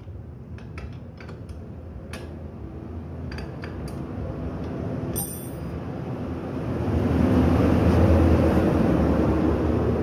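Bajaj Pulsar 220's rear wheel turned by hand on its stand, the drive chain running over the rear sprocket. A few light clinks come in the first few seconds, then a steady whirr that grows louder from a little past halfway and holds.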